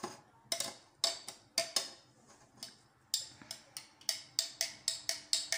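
A spoon clinking against the inside of a glass as a drink is stirred: sharp clinks a few times a second, with a short lull about two seconds in, then a steadier run of clinks.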